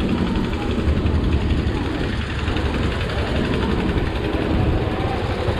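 An engine running steadily, with people talking nearby.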